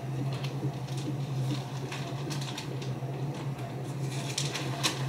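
Plastic sterile drape crinkling and rustling as it is handled and pressed onto a patient's back, with a few sharper crackles about four and a half seconds in. A steady low hum of room equipment runs underneath.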